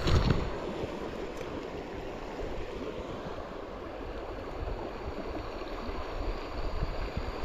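Small creek running, a steady rush of flowing water, with a short rumble of wind or handling on the microphone right at the start.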